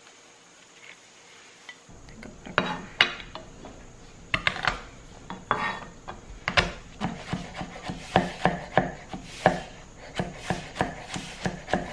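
Chef's knife chopping garlic cloves on a wooden cutting board: after about two seconds of near-quiet, scattered sharp knocks of the blade on the board, settling into a steady chop of about three strokes a second.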